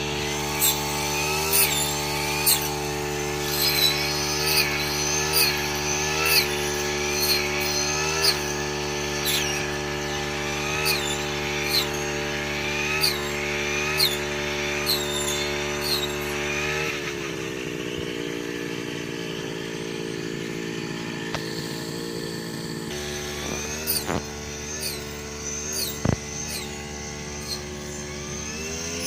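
Two-stroke brush cutter engine running at high speed as it cuts rice stalks, dipping briefly about once a second with each sweep through the stalks. About two-thirds of the way through it drops to a lower speed, then picks up again near the end.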